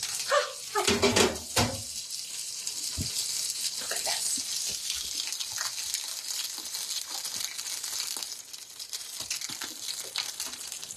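Steak sizzling on a hot metal mesh tray, a steady crackling hiss. A few knocks and handling sounds come in the first couple of seconds.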